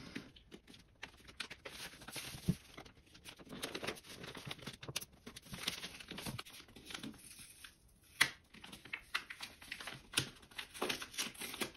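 Stiff white wrapping paper crinkling and rustling as fingers pick at and peel off the red seal holding the wrapping closed. Many small irregular clicks and scratches, with one sharper click about eight seconds in.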